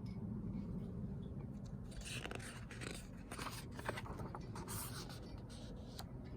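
Paper rustling and scraping for a few seconds, followed by a single light click: a book's page being handled and turned. A low room hum runs underneath.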